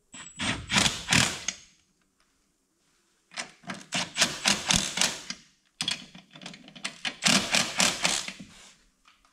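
A cordless impact wrench hammers shank-style lug nuts tight on a unilug wheel. It comes in three runs of rapid rattling impacts: a short one at the start, then two longer ones from about three seconds in.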